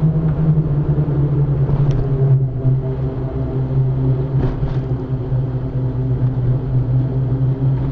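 Daihatsu Atrai kei van's 660cc turbocharged three-cylinder engine running steadily under way, heard from inside the cab along with tyre and road noise. The engine note eases slowly down in pitch.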